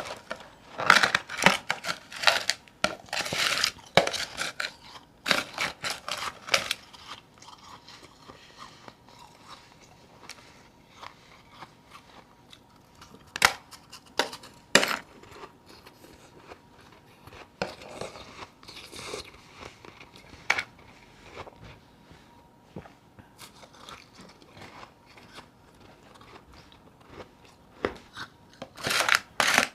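A person biting and chewing chunks of powdery frozen ice. There are dense crunches for the first several seconds, then sparse single crunches and quiet chewing through the middle, and heavy crunching again near the end.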